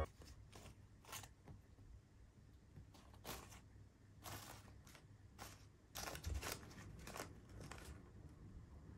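Faint, scattered crinkles and rustles of folded origami paper as a cat paws and nudges the paper cats about.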